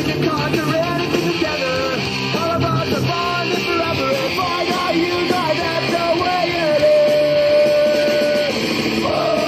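Rock music with guitar and a singing voice, one note held long about two-thirds of the way through.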